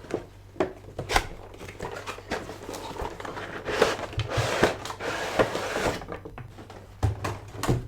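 Cardboard and plastic packaging of a boxed collectible figure being handled and opened: scattered knocks and clicks, with a stretch of rustling in the middle.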